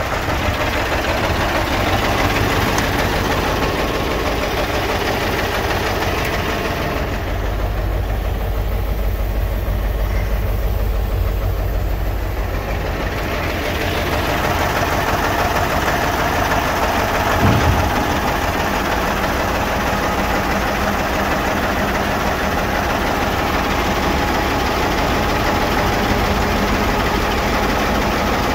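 Mercedes-Benz 2626 6x6 tipper's V8 diesel engine idling steadily. It sounds muffled for several seconds about a quarter of the way in, and there is a single thump a little past the middle.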